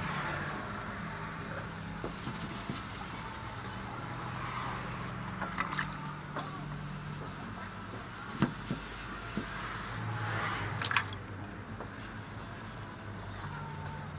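Wet sanding by hand: a sanding block with 320-grit wet-and-dry paper rubbed back and forth over a car's wet, painted steel roof. It makes a steady wet rubbing and scraping, with small clicks as the block shifts. The paint is being flatted back toward the primer.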